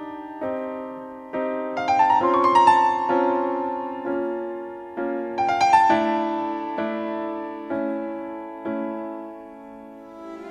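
Slow solo piano music: chords struck about once a second and left to ring and fade, growing softer near the end.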